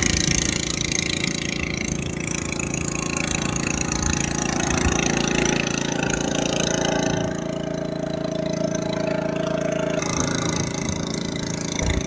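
A boat's engine running steadily while under way, with a higher steady tone joining in past the middle for a few seconds.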